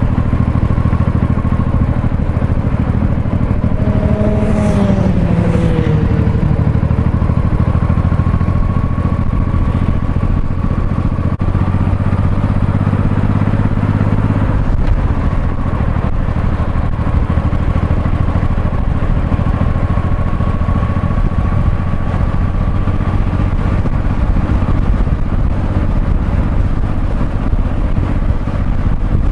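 Honda Shadow V-twin motorcycle engine running steadily under way, heard from the rider's position. About four seconds in, a pitched sound glides downward. The engine note changes about fifteen seconds in.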